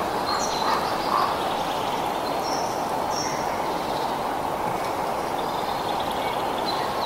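Steady wind rushing through forest foliage, with a few short, high bird chirps breaking through now and then.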